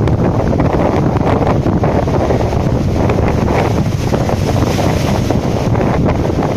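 Strong wind buffeting the microphone over rough storm surf breaking on a rock boulder seawall, with a wave crashing against the boulders about four seconds in.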